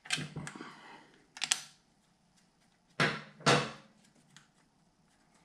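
Clicks and clinks of a hand driver working a 10 mm bolt loose from the cam sprocket of a Honda CB550 engine. A cluster of knocks comes at the start, one about a second and a half in, and two close together about three seconds in.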